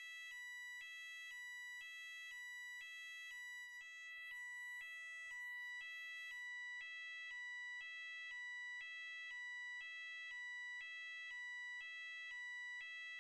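Electronic fire alarm sounding: a steady piercing high tone with a two-note warble over it, switching pitch about twice a second.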